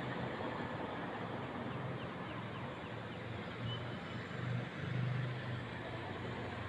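Steady motor-vehicle traffic noise: a low engine rumble under a broad hiss, swelling louder for a moment about five seconds in.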